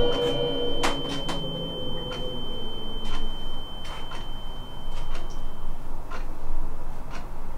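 An air-raid siren dies away in the first second, leaving one steady high tone that holds until about six seconds in and then cuts off. Sharp clicks sound at irregular intervals throughout, the loudest about a second in.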